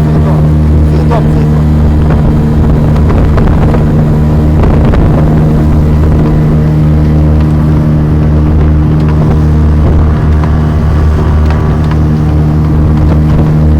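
Motorboat engine running at a steady speed, a constant loud drone.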